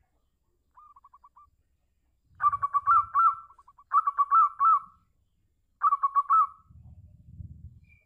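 Zebra dove (perkutut) cooing: a soft, short trill about a second in, then three loud phrases of rapid staccato coos, each under a second long. A low rumble follows near the end.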